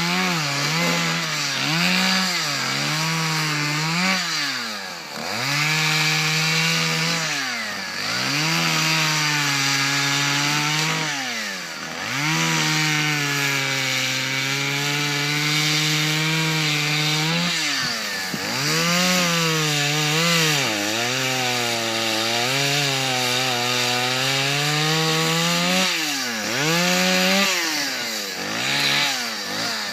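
Chainsaw cutting into dead ash wood. The engine holds a high, steady pitch that sags under load during the longer cuts. About six times it drops sharply off the throttle and revs back up.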